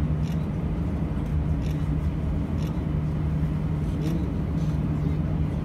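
Steady low hum of an airliner cabin while the jet holds on the ground, its engines and air systems running, with a few faint ticks.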